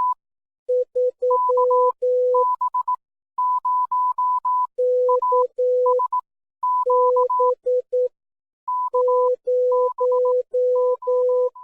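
Morse code sent as keyed beeps, short and long, in two pitches an octave apart that take turns in groups, a higher tone and a lower one.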